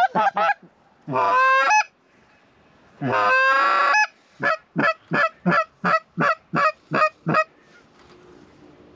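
Goose honks, loud and close: a short honk, a longer honk about three seconds in, then a quick run of about ten short clucks, about three a second.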